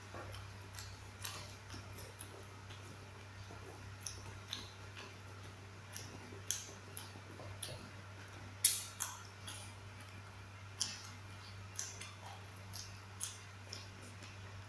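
Raw yardlong beans being bitten and chewed: irregular sharp crunches and clicks, the loudest a little past the middle, over a steady low hum.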